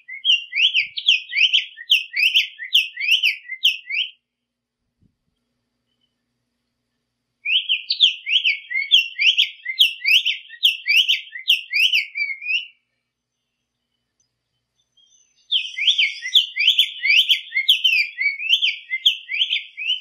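Black-faced tanager (sanhaço-de-coleira) singing: three bouts of quick, repeated short whistled notes that sweep up and down, each bout lasting four to five seconds with a pause of a few seconds between.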